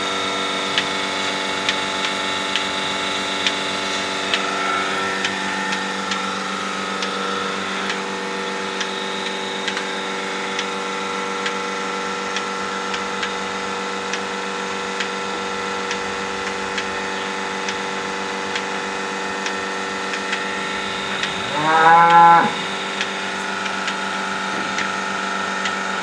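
Bucket milking machine running on a cow: a steady hum with the pulsator ticking regularly, about once a second. About 21 seconds in, a cow moos once, loudly, for about a second.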